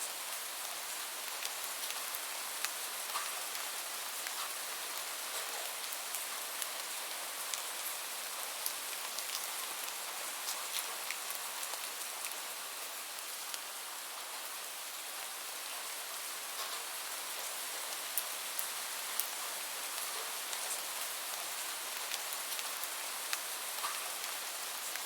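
Light rain falling steadily: an even hiss with many scattered individual drops ticking.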